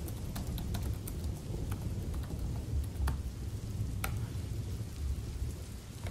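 Fingers typing on a Dell laptop's keyboard: irregular soft key clicks, several a second, with a sharper one about four seconds in. Underneath is steady rain with a low rumble.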